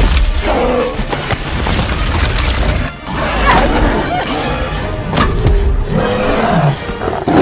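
Monster-movie fight soundtrack: orchestral score mixed with the roars and growls of a giant gorilla and a dinosaur and heavy impact thuds, with a sharp crash about five seconds in.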